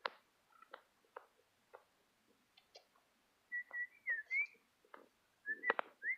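A person whistling short up-and-down notes in two bursts, one around the middle and one near the end, over soft clicking footsteps.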